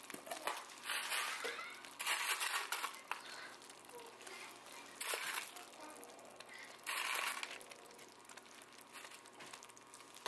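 About four short crinkling rustles as frozen chopped chili pepper is sprinkled over the glass noodle stew.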